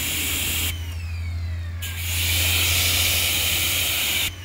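Pressure washer jet spraying onto a pickup's painted door and window glass with a loud hiss. The spray stops about a second in and starts again a second later, then cuts off just before the end. A steady low hum runs underneath, and a faint falling whine is heard in the pause.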